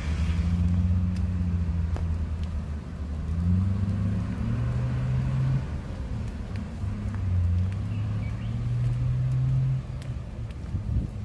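A motor vehicle's engine running: a low hum that shifts up and down in pitch a few times and eases off about ten seconds in.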